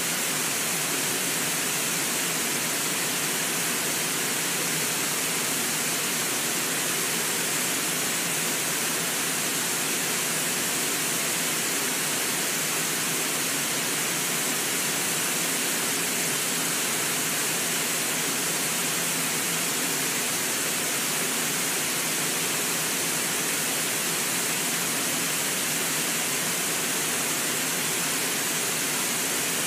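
Steady, even rush of a waterfall, with river water pouring over a low rock ledge.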